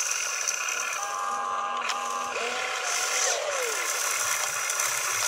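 Electric motors of a model RC excavator whining as it empties its bucket and swings its upper body round, the pitch rising and falling with the load on the motors, over light mechanical rattling.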